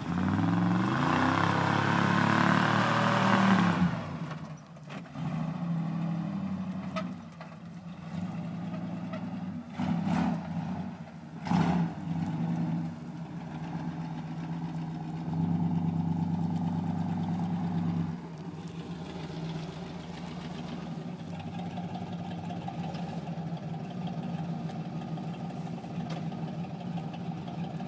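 1979 Ford pickup's 460 big-block V8, bored to 472 and running open headers, revving hard as the truck drives, rising in pitch for the first few seconds. Several shorter revs follow, with a sharp knock about halfway through, and the engine settles to a steadier, lower run for the last third.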